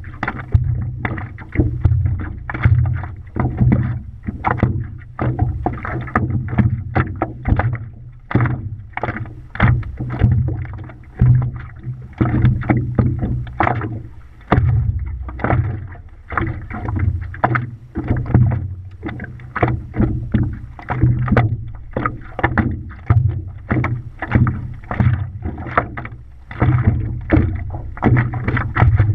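Water lapping and slapping against a stand-up paddleboard and a GoPro's waterproof housing at the waterline, in irregular splashes several times a second over a steady low rumble.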